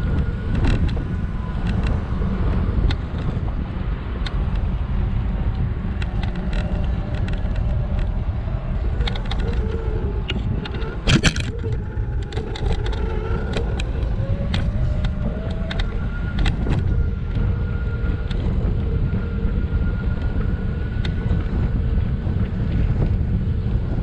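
Riding a scooter over city asphalt: a steady low rumble of wind on the microphone and tyres on the road, with rattling clicks and knocks over bumps and cracks, the loudest about 11 seconds in. A faint steady whine runs underneath.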